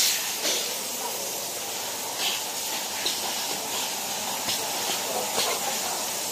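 Pocket tissue packing machine running: a steady hiss, with a few faint ticks.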